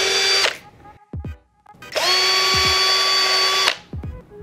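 Cordless drill running in two short bursts, its bit boring into one of the soft eyes of a coconut. It gives a steady whine that rises in pitch as it spins up. The first burst stops about half a second in, and a second burst of nearly two seconds starts about two seconds in.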